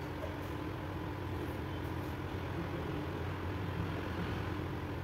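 A steady low mechanical hum that holds even throughout.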